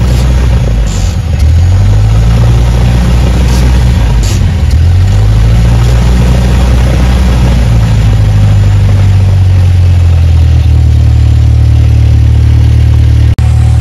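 Cessna 172's piston engine and propeller running at high power, heard loud from inside the cockpit during the takeoff roll. The engine note wavers in pitch a couple of times in the first few seconds, then holds steady; a brief dropout near the end.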